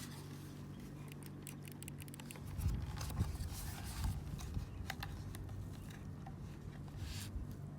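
Scattered sharp clicks and small knocks over a low steady hum, starting about two and a half seconds in.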